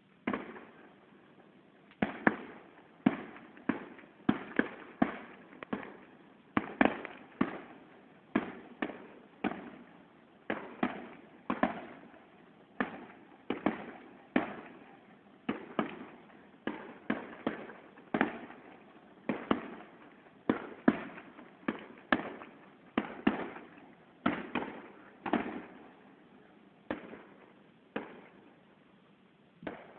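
Fireworks display: shells bursting in a steady barrage of bangs, one or two a second, each with an echoing tail.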